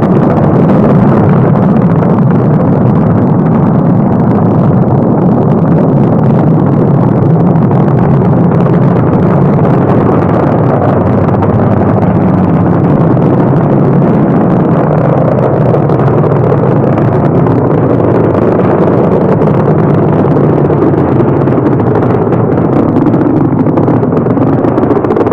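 Rocket engines during a launch: a loud, steady noise that holds without a break.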